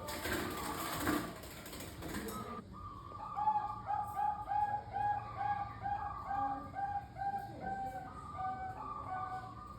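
Zebra dove (Bangkok-strain perkutut) singing a run of about a dozen evenly spaced coo notes, roughly three a second, with other dove notes around them. A burst of noise comes first, for about the first two and a half seconds.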